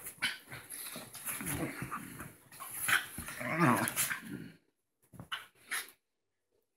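Two small dogs play-fighting, growling and scuffling on rustling bedsheets. The tussle stops about two-thirds of the way through, leaving a couple of short sounds and then quiet.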